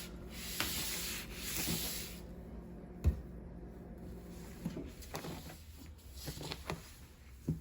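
Scrubbing and rubbing on an item's surface to clean off sticker residue, a scratchy rubbing for about two seconds, then a knock about three seconds in and a few light clicks and taps.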